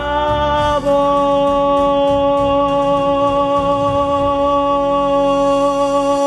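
Song's closing note: a singer scoops up into one long held note over the accompaniment, which stops just at the end.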